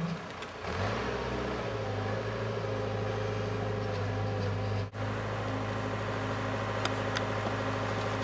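Backhoe loader's diesel engine running steadily at a constant speed, with a brief dropout about five seconds in.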